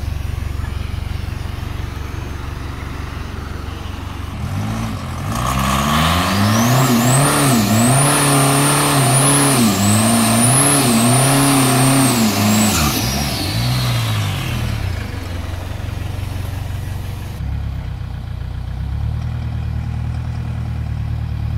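Four-cylinder 4J turbo diesel idling, then about four seconds in revved hard and held high for about ten seconds during a burnout, the revs rising and falling while the rear tyres spin, with a high whistle over it that follows the revs. It then drops back to a low idle.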